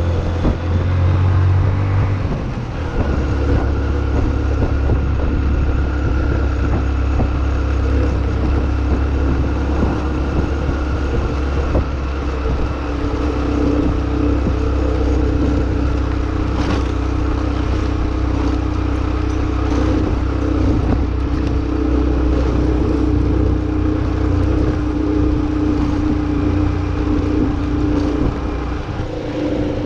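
A motor vehicle driving along a street: a steady engine drone over a heavy low road rumble.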